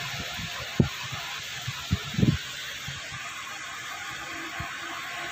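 Steady hiss of rain falling, with a few dull low thumps about one and two seconds in.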